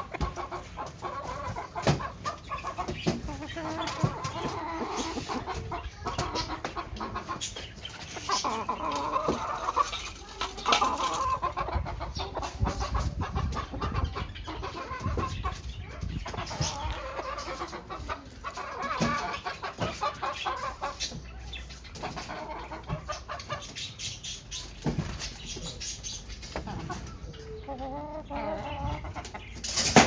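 Aseel chickens clucking, a steady run of short calls.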